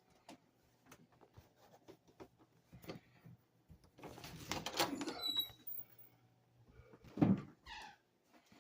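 Footsteps and small handling knocks as a person walks indoors, with a door being opened about four to five seconds in and a louder knock near the end.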